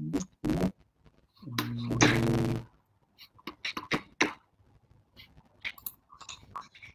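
A man's voice over a video call: a couple of short syllables, then a drawn-out vowel about a second long, then only faint, clipped fragments of sound on a connection that is breaking up.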